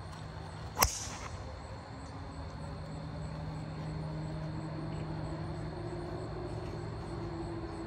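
Golf driver striking a teed ball: one sharp crack about a second in. A steady low drone of a distant engine runs underneath.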